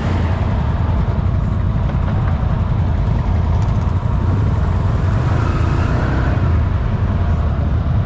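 Can-Am off-road vehicle's engine running in a mudhole, a steady low rumble that stays even throughout.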